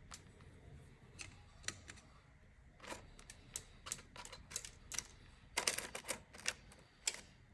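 Irregular light clicks and taps, with a quick run of several together about two thirds of the way through.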